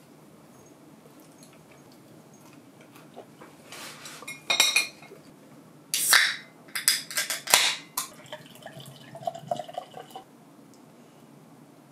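Glassware knocking and clinking on a wooden table, the loudest a sharp knock about six seconds in as a frosted glass beer mug is set down. Near the end, beer is poured from a bottle into the mug for about a second and a half.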